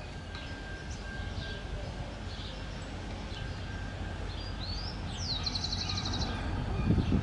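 Birds chirping, with a fast trill about five seconds in, over the low rumble of an approaching EMD GM GT22 diesel locomotive that slowly grows louder.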